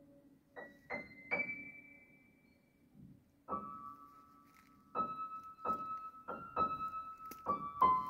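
Background music of soft piano notes: three single notes struck in the first second and a half, a short pause, then a slow run of ringing notes through the second half.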